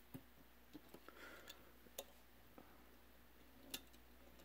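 Faint, scattered clicks and taps as 1/64-scale diecast cars are picked up and set down on the deck of a toy car carrier trailer, the loudest near the end; otherwise near silence.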